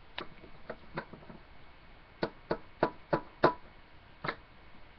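Littlest Pet Shop plastic toy figure being tapped along a wooden dollhouse floor as it is walked, about nine sharp, irregular taps, most of them bunched together in the middle.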